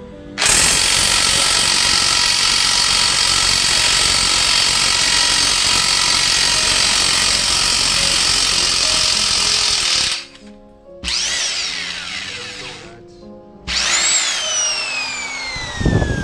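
Electric impact wrench hammering continuously for about ten seconds against a seized bicycle bottom-bracket cup, then stopping abruptly. It then gives two short runs without the hammering, each a motor whine that rises and glides down as it winds down: the cup has broken loose.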